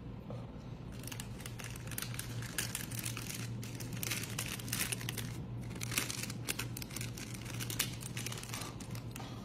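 Plastic wrapper of a Magnum ice cream bar being crinkled and pulled open by hand, in a run of irregular crackles with a few sharper ones, starting about a second in.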